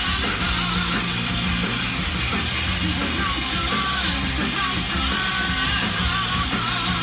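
Hard rock music playing from a vinyl record on a turntable: a full band with electric guitar, steady throughout.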